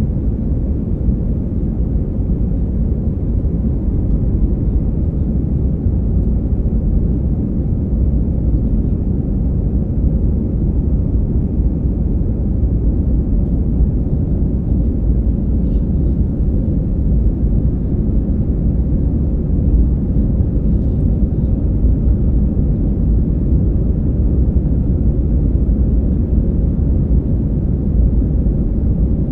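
Airbus A319-112 cabin noise during the climb after takeoff, heard from a window seat: a steady low rumble of the CFM56 engines and rushing air, with a faint steady hum in it.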